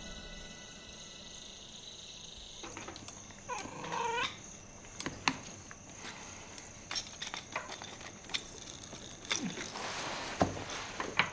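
Cutlery clinking against plates and bowls at a dinner table, in scattered sharp clicks, with a brief whining call about four seconds in. Near the end a pepper mill is ground in a short grainy burst.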